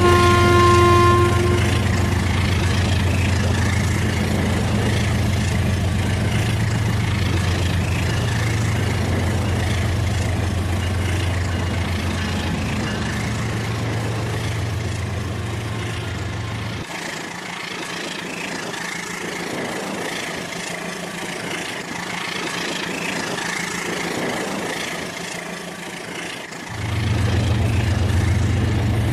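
Rail King toy train running on its track: a short electronic horn tone sounds for about two seconds at the start, over a steady low motor hum and the rattle of the wheels. The low hum drops out for about ten seconds past the middle, then comes back near the end.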